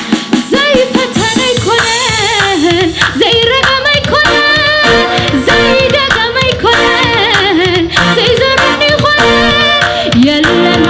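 A woman singing a gospel worship song into a handheld microphone, her voice bending and wavering through the melody, over instrumental accompaniment.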